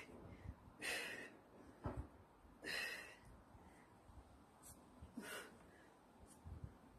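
A woman's short, hissy breaths out, three about two seconds apart, one with each diagonal crunch she does.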